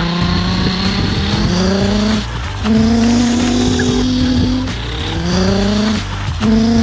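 An engine revving: its pitch climbs and then holds steady, then drops back and climbs again, about every two seconds, like a vehicle accelerating through gears, over a low rumble.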